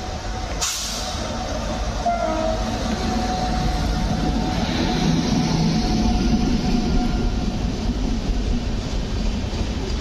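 Passenger train hauled by a WAP-7 electric locomotive passing close by at speed: steady rumble and rattle of the coaches' wheels on the rails, growing louder through the middle.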